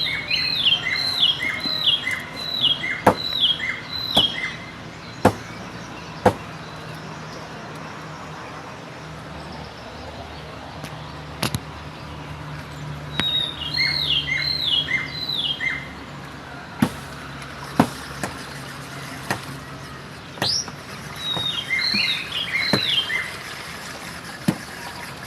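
A bird calls in three bouts of quick repeated chirps, each a short series of down-slurred notes, with sharp single knocks scattered between them.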